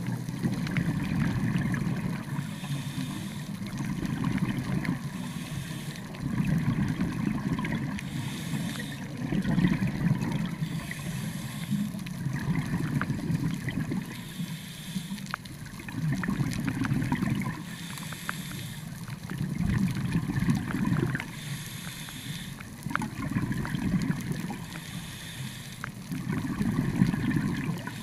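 Scuba diver breathing through a regulator underwater: a short hiss as each breath is drawn, then a longer rumbling burst of exhaled bubbles, repeating about every three seconds.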